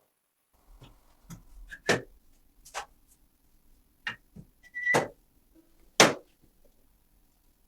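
Irregular sharp clicks and knocks from parts of an SA 26 submachine gun being handled and worked during repair, with about five louder knocks spread over several seconds.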